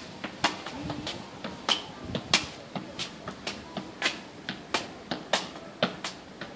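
Tennis ball being juggled on the feet: a string of sharp, light taps at an uneven pace of about two or three a second.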